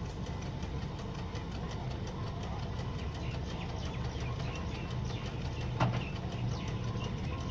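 Heavy railway crane's engine running steadily with a fast, even throb. A single sharp knock comes about six seconds in.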